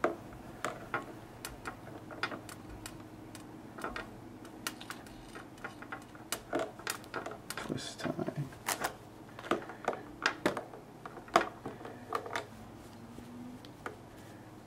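Hands uncoiling a bundled Bose in-ear headphone cable: scattered, irregular light clicks and ticks of the cord and its small plastic parts being handled.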